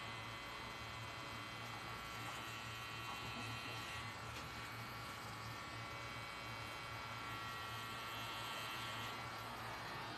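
Pen-style tattoo machine running with a steady electric buzz as its needle works on the skin.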